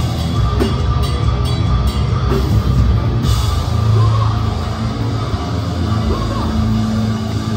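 Hardcore band playing live through a club PA: heavy drums, distorted guitars and bass. Hard drum hits land two or three times a second at first, then about three seconds in the band moves into sustained low chords.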